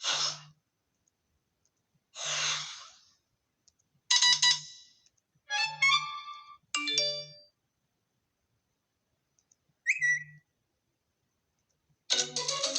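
iPhone XR tones previewed one after another: about seven short chimes and whooshes, each under a second long, with silent gaps between them. Each one starts with a brief low buzz.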